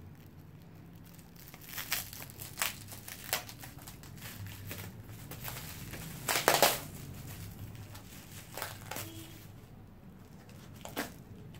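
Plastic courier bag being handled and pulled open, crinkling irregularly. The loudest cluster of crackles comes about six and a half seconds in.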